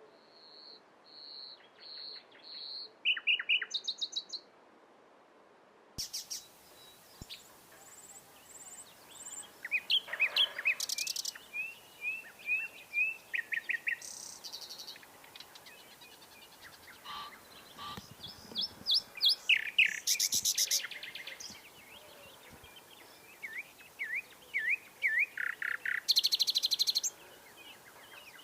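Common nightingale singing in separate phrases: runs of repeated whistled notes, fast trills and dry, harsh rattles, with short pauses between phrases.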